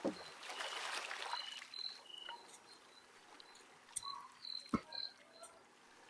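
Faint outdoor ambience of short, high animal chirps repeating at uneven intervals, with two sharp clicks near the middle and a soft rush of noise at the start.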